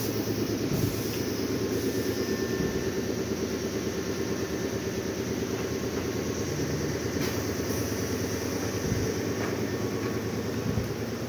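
Meitetsu red electric commuter train coming to a stop at a platform, then standing with a steady hum from its onboard equipment.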